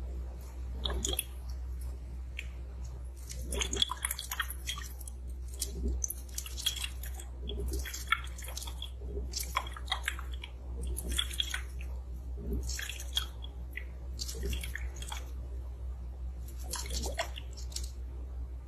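A small glass bottle handled and rubbed against a silicone ear microphone, close up, giving crackly bursts about once a second.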